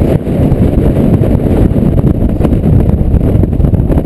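Strong storm wind buffeting the camera's microphone: a loud, steady, low rumble that flutters constantly.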